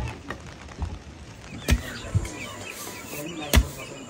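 Long wooden pestle pounding grain in a stone mortar: two heavy thuds about two seconds apart, with chickens clucking between the strokes.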